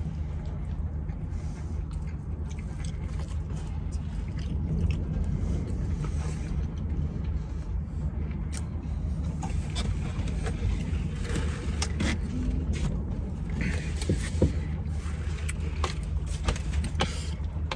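A car engine idling in a steady low hum, heard from inside the cabin, with scattered light rustles and clicks from someone handling food and wrappers.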